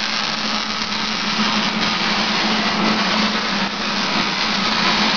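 Electric welding arc crackling steadily over a low hum as the boxing plates are welded onto a car frame, with a brief dip about three and a half seconds in.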